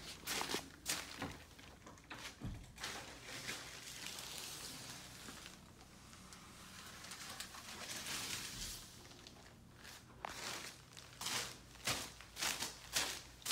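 Footsteps on carpet and thin plastic sheeting laid over the floor, about two steps a second, with the plastic rustling and crinkling; the steps ease into a softer rustle through the middle and pick up again near the end.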